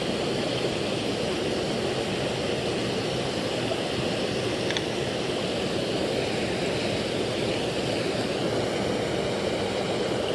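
Creek water pouring over a small waterfall: a steady rushing, with no break.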